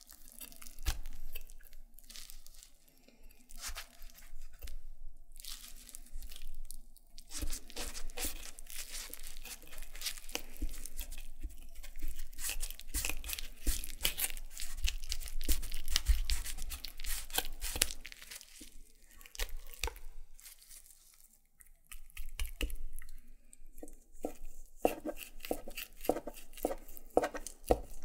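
A knife cutting at the joint of a raw chicken wing while the bone is twisted back and forth, giving wet crackling and tearing from the cartilage and tendons. The crackling is densest in the middle and thins to a run of separate clicks near the end.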